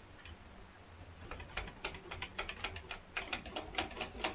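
A whisk clicking rapidly against the sides of a mixing bowl as batter is beaten. The quick, irregular clicks start about a second in.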